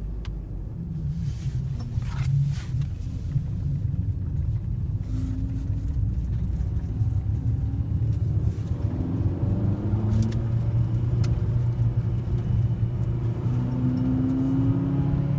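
Fiat 500 Sport's small four-cylinder engine and road rumble heard from inside the car while driving, the engine note rising several times as it accelerates. The car is running with a broken airbox.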